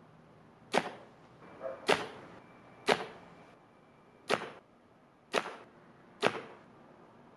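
Compound bow shots in quick succession: six sharp cracks, about one a second, each the string's release with the arrow tearing through a paper sheet and striking the target a few yards away, as the bow is paper-tuned.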